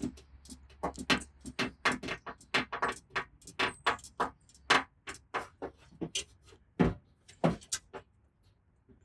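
Rapid light taps of a paintless dent repair tap-down tool on a car fender's sheet metal, about four to five a second, stopping about a second before the end: knocking down the high spots while finishing a crease.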